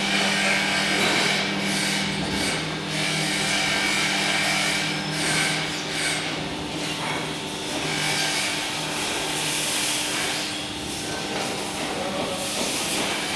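Hydraulic scissor lift table in operation: a steady hiss with a low hum under it. The hum drops in pitch about two and a half seconds in.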